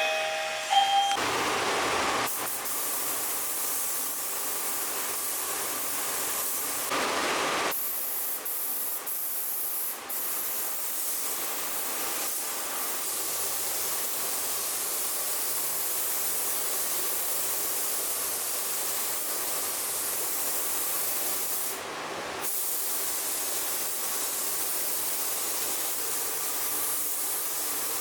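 Compressed-air paint spray gun hissing steadily, with a few brief changes where the spray is interrupted.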